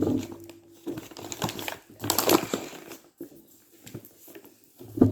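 Flour being scooped and measured out: irregular rustling and scraping, loudest over a second or two in the middle, with a few light knocks of the measuring cup.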